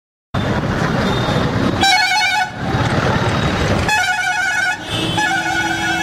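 Busy street traffic: engine and road noise cutting in suddenly just after the start, with repeated vehicle horn blasts about two seconds in, about four seconds in, and again from about five seconds in.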